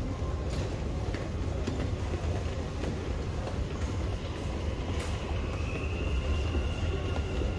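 Dubai Metro train running, heard from inside the car: a steady low rumble with a few clicks from the wheels and track. About five seconds in, a thin high squeal joins it and lasts a couple of seconds.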